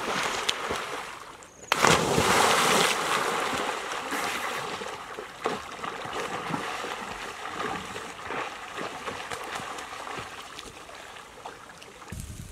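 River water splashing as people swim through it with strong strokes, with a loud surge of splashing about two seconds in that slowly dies down.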